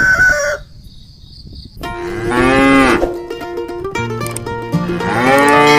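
Two cow moos, each about a second long, rising and then falling in pitch: one about two seconds in and one near the end. Plucked-string music comes in about four seconds in, under the second moo, and a rooster's crow cuts off just at the start.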